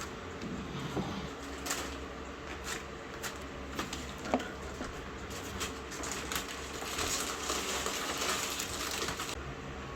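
Handling noises: scattered clicks and knocks, then a few seconds of rustling that stops suddenly near the end.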